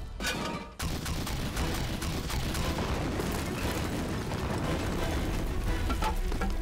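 Film battle soundtrack: artillery shell explosions and gunfire, with a low rumble, mixed with dramatic background music. The sound drops out briefly just before a second in.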